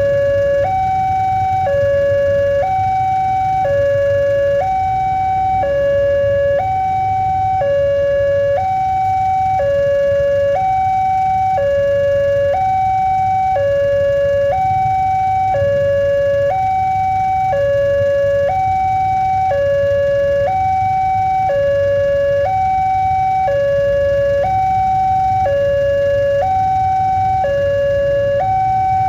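Railway level-crossing warning siren sounding a steady two-tone signal, switching between a higher and a lower tone about once a second; the warning that a train is approaching the crossing.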